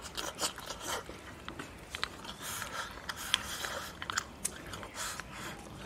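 Close-up eating sounds: glass noodles and stewed food being slurped and chewed from a bowl held to the mouth, a string of short irregular smacks and clicks.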